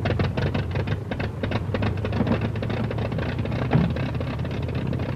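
De Havilland Chipmunk's four-cylinder Gipsy Major piston engine running just after start-up. It fires unevenly, with rapid crackling over a steady low hum.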